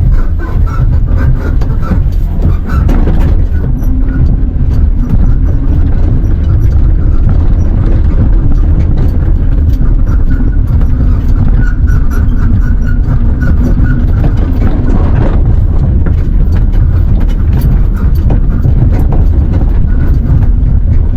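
Steady, loud rumble of an electric tricycle on the move: road and wind noise on the microphone, with a faint steady whine running through it.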